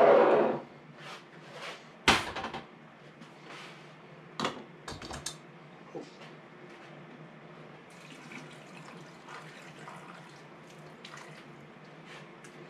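Glass canning jars knocking and clinking as they are handled on the counter, the loudest knocks near the start and about two seconds in. Then beef broth is poured from a bowl through a plastic canning funnel into a jar of raw sausage, a faint steady trickle in the second half.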